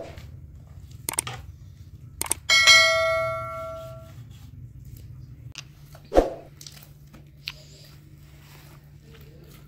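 Cooking clatter: a couple of sharp knocks, then a metal vessel struck once about two and a half seconds in, ringing and fading over about a second and a half, and a dull thud about six seconds in, over a steady low hum.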